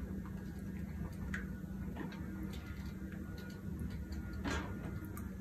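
A stick of butter beginning to melt in a heated pan, with faint scattered ticks and crackles over a steady low hum, and one louder click about four and a half seconds in.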